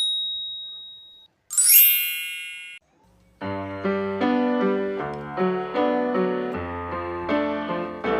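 A high ding that fades over about a second, then a short sparkling chime, followed about three seconds in by background music of piano-like notes and chords.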